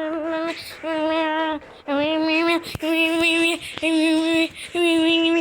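A young voice sings a string of about six held notes on nearly the same pitch. Each note lasts roughly half a second to a second, with a slight waver and short breaks between them.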